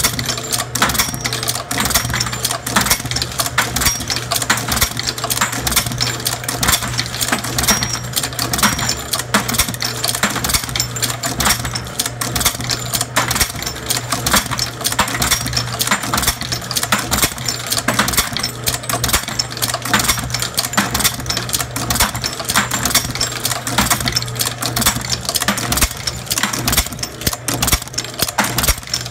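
Camdex automatic brass processor running on .45 ACP cases: a dense, continuous clatter of metallic clicks as the brass cases are indexed and pressed through the die stations, over a steady motor hum.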